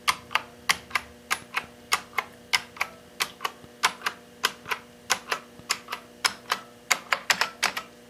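1993 IBM Model M keyboard's buckling-spring keys pressed one at a time, each key giving a sharp click, about three clicks a second, coming a little faster near the end.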